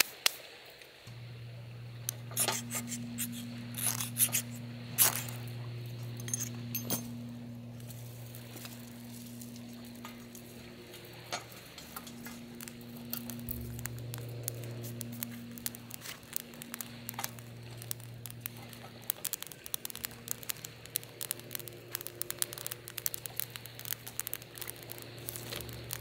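Dry twigs snapping and clattering as they are broken and dropped into a folding steel wood stove, a scatter of sharp clicks and knocks. The clicks come quicker and smaller near the end as the pine-needle tinder catches and crackles, over a steady low hum.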